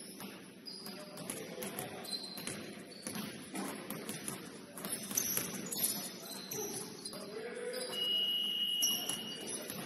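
Indoor basketball game: sneakers squeak in short high chirps on the court and the ball gives sharp knocks, over the murmur of players' voices. A single held high tone about a second long sounds near the end.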